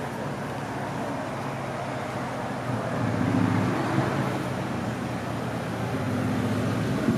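Road traffic on the road beside the platform: a steady wash of car tyre and engine noise, swelling slightly about three seconds in.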